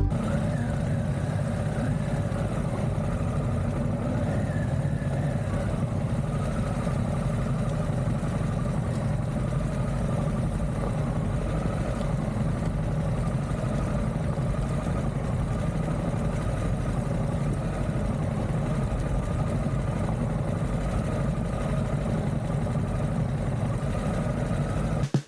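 Harley-Davidson Pan America's 1250 Revolution Max V-twin running steadily under way, the motorcycle cruising at an even pace.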